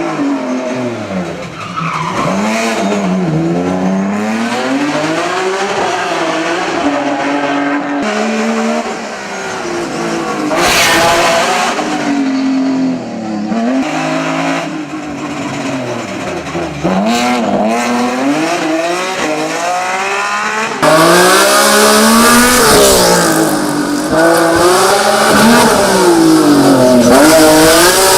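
Race car engine driven hard on a hill climb, the revs climbing and dropping again and again through gear changes and lifts. The sound changes abruptly a few times and is loudest in the last third.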